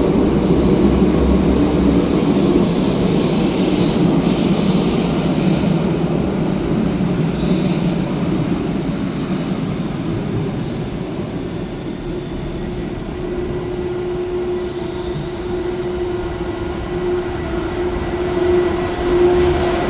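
Train running slowly through the station, rumbling, with its wheels squealing in thin high tones in the first few seconds. The rumble eases, and a steady hum comes in about two-thirds of the way through.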